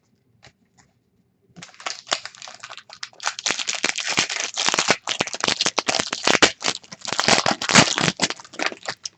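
Trading card pack wrapper crinkling and tearing as it is opened: a dense crackle that starts about a second and a half in and keeps going.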